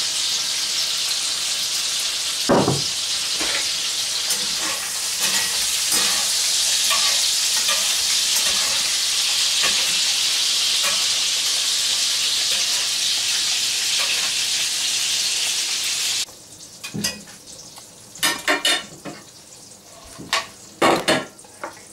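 Steady sizzling of food frying in a pan, which cuts off abruptly about 16 seconds in. After it come a few light clicks and knocks.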